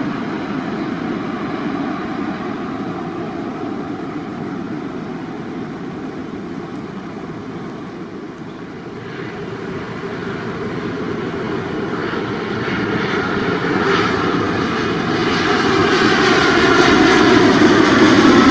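Jet noise of a Boeing 787-10 on final approach fading as it passes overhead and away. Then a Boeing 787-9 on approach with its GE engines, growing steadily louder as it comes in overhead, with a rising high hiss joining the low rumble.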